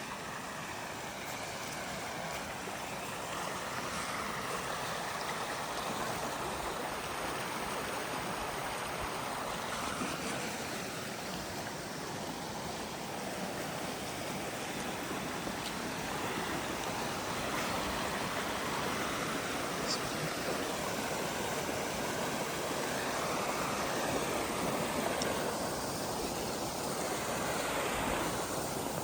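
Forest stream flowing, a steady rushing of water that swells a little in the first few seconds.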